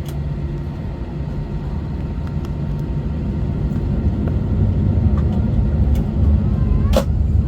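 Airliner cabin noise on the ground before takeoff: a steady low rumble of the engines and the aircraft moving, slowly growing louder, with a couple of faint clicks.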